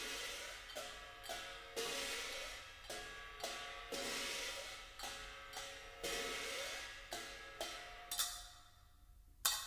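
Recorded percussion music played back through an Ologe Acoustic ONE v2.1 loudspeaker: cymbal and hi-hat strikes about twice a second, each ringing out. It thins to near quiet for about a second near the end, then one more strike.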